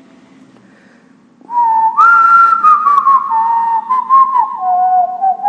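A person whistling a slow melody, coming in about a second and a half in after a quiet start, with held notes broken by quick ornamental turns.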